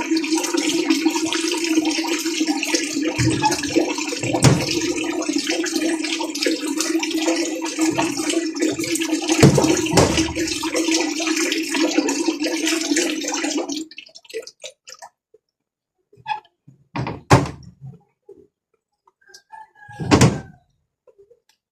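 Washing machine running a test wash with water in the tub: a steady motor hum under sloshing water, which stops about fourteen seconds in. A few short knocks follow. The drive noise it had before the repair is gone.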